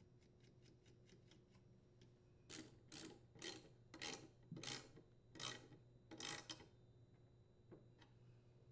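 Socket-wrench ratchet tightening a muffler mounting nut: faint quick clicks, then seven short rasping ratchet strokes under a second apart.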